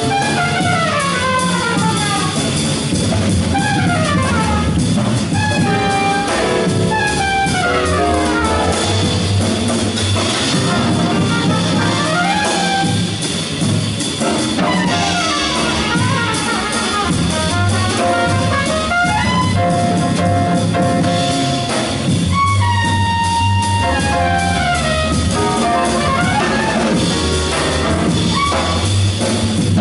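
Live small-group jazz: trumpet playing fast runs of notes over grand piano, upright bass and drum kit.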